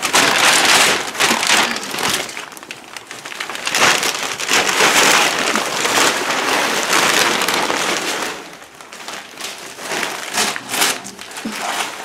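Christmas wrapping paper being ripped off furniture and crumpled: loud, continuous rustling and tearing for about eight seconds, then softer scattered crinkles.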